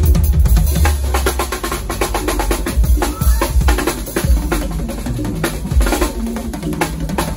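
Drum kit played hard and fast: rapid snare and tom strokes with cymbals over bass drum kicks, in a dense run of fills.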